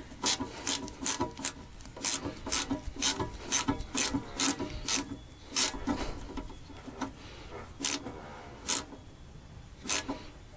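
Hand ratchet wrench clicking as a nut is run down, most likely on a windshield wiper arm: quick clicks about two a second at first, then fewer and further apart.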